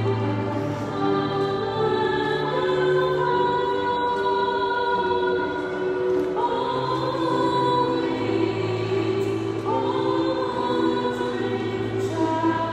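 Choir singing a slow hymn in long held notes, moving to new notes about six and ten seconds in, over a sustained low accompaniment.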